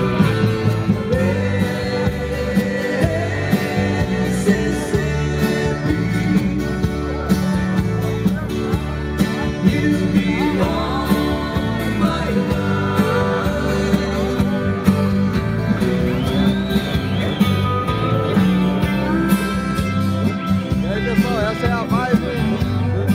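Live band playing amplified music on stage, with guitars, a steady bass line and singing.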